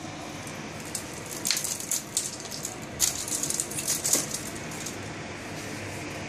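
A kitten scrabbling on a wooden parquet floor while playing with a soft measuring tape: bursts of scratchy scuffling and rustling, about a second and a half in and again from about three to four seconds in.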